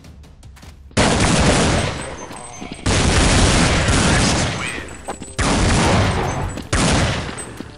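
Gunfire sound effects dubbed over Nerf blaster play: four loud bursts of rapid gunfire, each starting suddenly and fading over a second or two.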